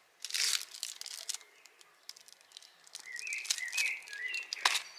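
A paper-book match struck and flaring with a scratchy hiss, then small crackles and crinkling as the flame is held to a paper-wrapped barbecue fire lighter. Small birds chirp briefly from about three seconds in, and there is a sharp click near the end.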